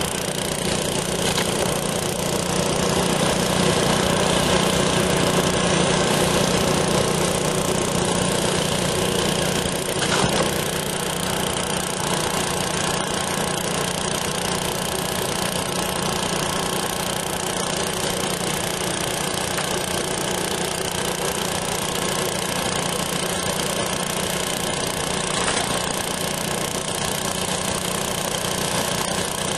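Small engine running steadily at a constant speed, with a rush of air, powering the GutterKeeper's long tube.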